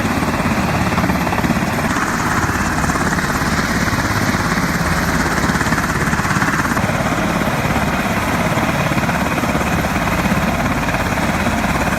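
Helicopter running loud and close, a steady dense noise of rotor chop and turbine.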